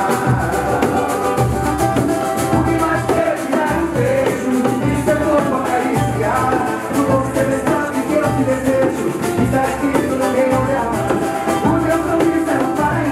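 Live band music in a Brazilian style: cavaquinho strumming over a hand drum, drum kit and keyboard, with voices singing.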